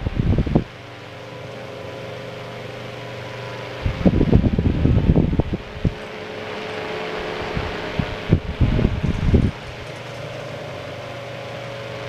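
Catalina table fan running and slowly coming up to speed after sitting unused a long time. Its motor hums steadily under a rush of air, broken three times by loud, uneven low rumbling bursts lasting a second or two each.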